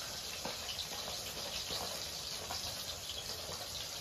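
Steady sizzle of bata fish frying in hot oil, with a few faint scrapes of a hand peeler on a potato.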